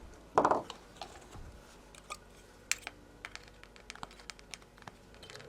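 Scattered small sharp clicks and taps of electronic components and hand tools handled on a workbench while an electronics kit is assembled, with a brief louder sound about half a second in.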